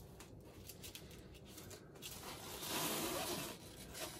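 Packaging handling noise: a few faint taps and clicks, then about two seconds in a second or so of scraping and rustling as a statue base piece is slid out of its foam packaging tray.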